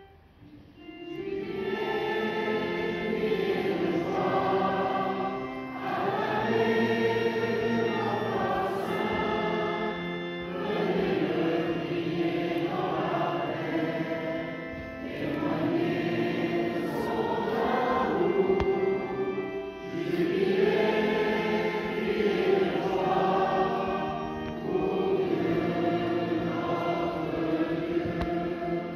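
Choir singing a hymn in phrases a few seconds long, starting about a second in, over steady sustained tones.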